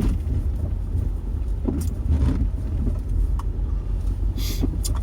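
Road noise inside a moving car: a steady low rumble of engine and tyres, with a brief louder hiss a little before the end.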